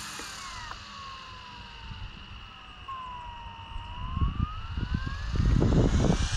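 Small RC helicopter's electric motor and rotor spinning up from the ground, the whine falling and then rising in pitch from about halfway. In the last two seconds rough low thumps and rumbling grow loud as the helicopter skids and tips over, which the pilot thinks comes from idling it up too quickly.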